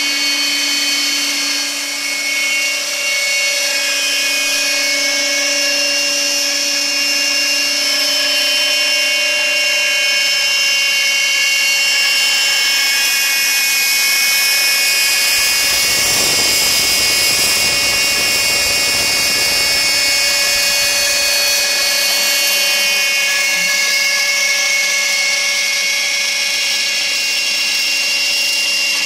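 A CNC-driven trim router running at high speed, its bit cutting fibreboard, with a vacuum drawing air through the dust shoe hose: a steady high whine throughout, with a louder, rougher rush of cutting noise for several seconds around the middle.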